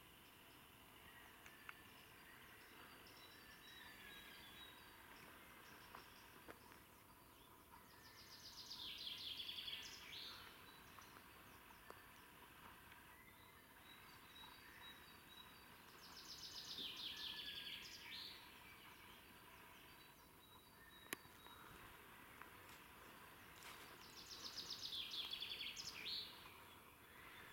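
A large bird calling three times, about eight seconds apart. Each call is a rapid run of sharp, high notes lasting about two seconds, over faint background birdsong. It is taken for a bird of prey in the woods.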